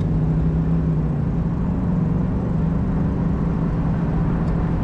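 1985 Mustang 5.0's V8 pulling under hard acceleration, heard from the open convertible cabin with road and wind noise. The engine note holds fairly steady rather than climbing sharply: not a very fast pull.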